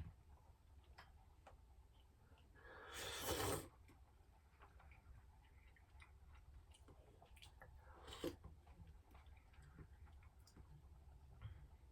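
Quiet eating of a bowl of tteokguk over near silence: faint scattered utensil clicks, with a louder breathy noise lasting about a second about three seconds in and a shorter one near eight seconds.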